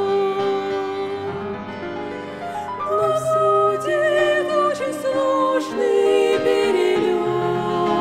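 Two women singing a duet in Russian, with vibrato, over an instrumental accompaniment.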